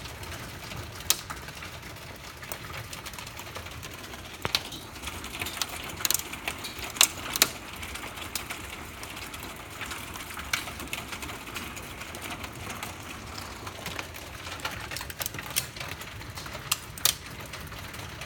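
Hail falling on a wooden deck and the lid of a plastic storage bin: a steady wash of rain noise with irregular sharp clicks of hailstones striking, a few of them much louder.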